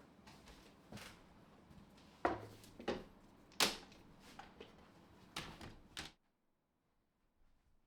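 A series of light wooden knocks and clicks, about six, as small wooden parts are handled and set down, stopping abruptly about six seconds in.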